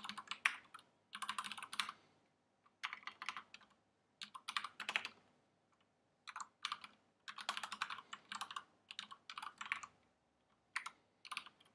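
Typing on a computer keyboard: bursts of quick keystrokes, each lasting about a second, with short pauses between them.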